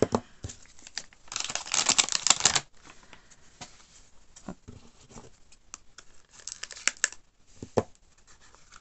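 Plastic blind-bag packaging torn and crinkled open in a loud burst about a second in, followed by scattered light taps and scrapes of a small cardboard box being handled, with another short crinkle near the end.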